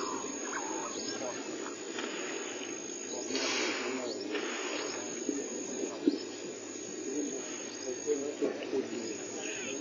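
Steady high-pitched insect trill of bush ambience, with faint indistinct voices and small rustles underneath.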